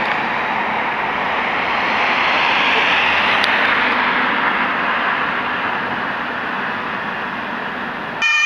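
Nuremberg U-Bahn train running past on the elevated track: a steady rushing of wheels and motors that swells over the first few seconds and then slowly eases. An emergency vehicle's siren cuts in just before the end.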